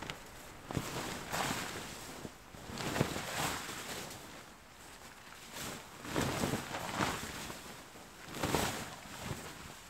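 A large fabric sheet being shaken out and flapping in the air, in about five swishing bursts that come and go over several seconds.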